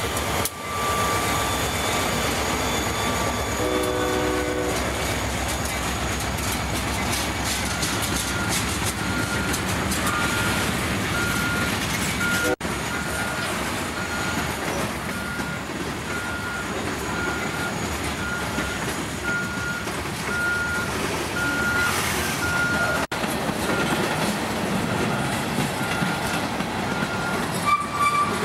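Freight trains passing close by: the steady rumble and clatter of locomotives and freight cars rolling over the rails, with a short locomotive horn blast about four seconds in. A repeating ding sounds about once a second through the second half.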